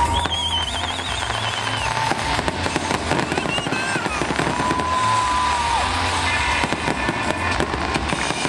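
Aerial fireworks shells bursting overhead in a dense, continuous run of bangs and crackles.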